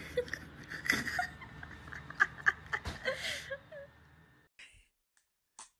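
A cat holding a toy in its mouth gives a few short meows, one with a sliding pitch about three seconds in, over breathy bursts of laughter. The sounds stop about four seconds in.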